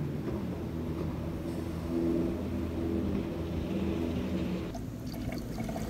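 A large engine running steadily with a low, even hum.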